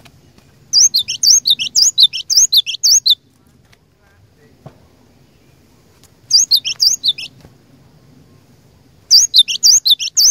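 Cinereous tit (glatik batu) singing in three bursts of rapid, repeated high notes. The first burst lasts about two seconds, and shorter ones follow at about six and nine seconds in.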